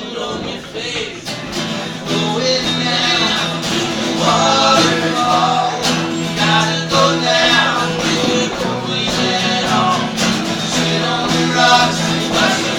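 A band playing a country-style song with guitar and a singing voice.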